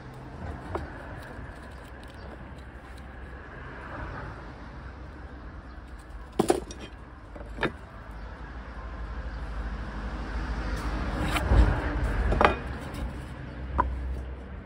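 Wooden boards and a metal carpenter's square handled on a workbench: scattered knocks and clacks as they are set down and moved, the loudest two a little past the middle. A low rumble builds underneath in the second half.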